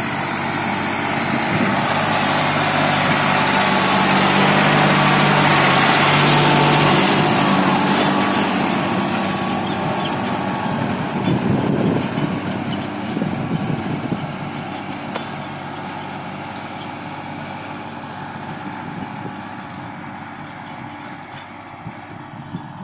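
New Holland 6010 tractor's diesel engine running under load while pulling a chisel plough through extremely hard, dry soil. It grows louder as the tractor comes close, peaking about a quarter of the way in, then fades steadily as it moves away.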